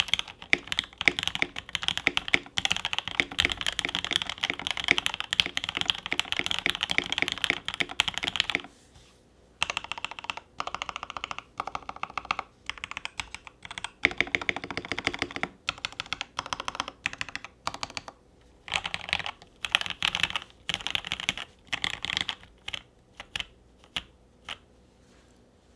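Typing on a mechanical keyboard with lubed Tangerine R2 linear switches, a brass plate in a polycarbonate top-mount case, and GMK keycaps, giving a deep-sounding clack. Fast continuous typing runs for about eight seconds, then comes in shorter bursts with brief pauses and stops near the end.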